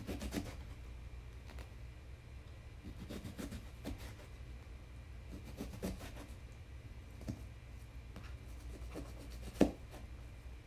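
Kitchen knife dicing a Granny Smith apple on a cutting board: soft, irregular knocks of the blade against the board, with one louder knock near the end, over a steady low hum.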